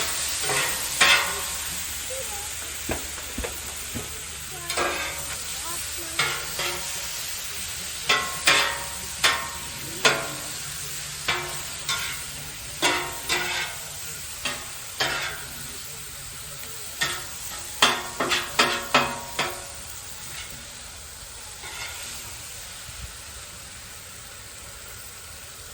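Food sizzling in a frying pan while a utensil is stirred and scraped through it. About twenty sharp, ringing clacks against the pan come in clusters over most of the stretch, and the sizzle slowly dies down.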